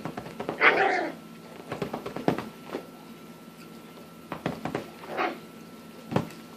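Miniature Schnauzer puppy giving a few short barks while playing, the loudest near the start, with scuffling clicks from its paws on the couch fabric.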